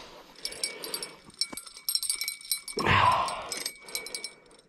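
Light metallic clicking and jingling of ice-fishing gear being handled, a rod and spinning reel, as scattered high ticks and brief ringing, with one louder burst of noise about three seconds in.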